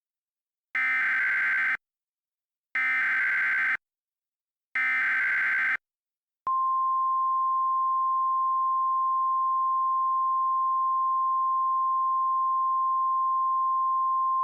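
Emergency Alert System SAME header: three one-second bursts of warbling data tones, a second apart, followed by a single steady 1050 Hz attention tone held for about eight seconds.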